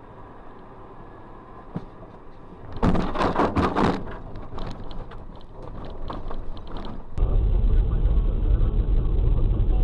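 A vehicle collision on dash-cam audio: a sudden loud crunch of impact lasting about a second, followed by a few seconds of scattered knocks and rattles. Near the end it cuts to the steady low rumble of a car's engine and road noise.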